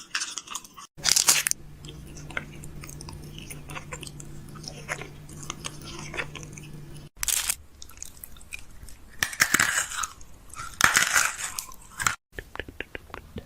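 Fridge-restocking handling sounds: food packaging crinkling and rustling, with clicks and light knocks of items and containers being set in place. The sounds come in several short clips joined by abrupt cuts, the first with a steady low hum beneath.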